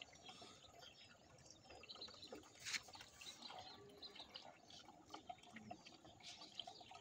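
Near silence, with faint scattered ticks and one brief louder click a little under three seconds in.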